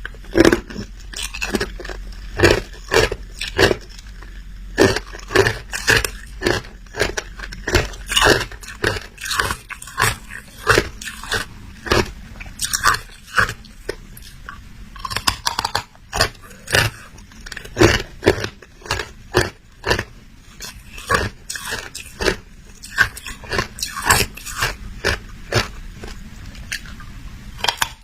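Close-miked crunching of hard ice being bitten and chewed: sharp, irregular crunches, about two to three a second.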